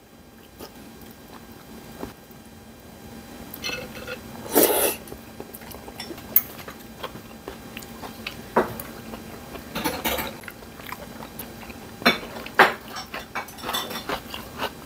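A person eating a meal of sliced boiled meat and beef bone soup: chewing, with scattered clicks of chopsticks and a spoon against porcelain bowls and a few louder short sounds, the biggest about four and a half seconds in and again near ten seconds.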